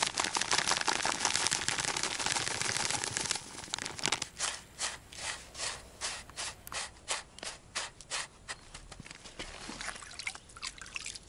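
Fine dry groundbait pouring out of a plastic bag into a plastic tub, a steady rustling hiss for about the first three seconds. Then a string of separate drips and small splashes, one to two a second, as river water is scooped by hand into the feed to wet it heavily.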